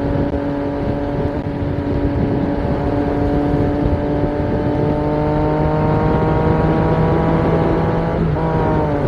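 Yamaha XSR900's inline three-cylinder engine pulling at highway speed, its pitch climbing slowly as the bike accelerates, over steady wind and road rush. Near the end the engine pitch dips briefly and picks up again.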